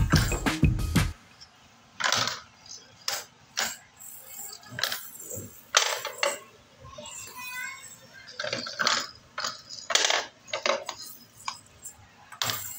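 Background music that stops about a second in, then toy domino pieces clicking and clattering in separate knocks, roughly one a second.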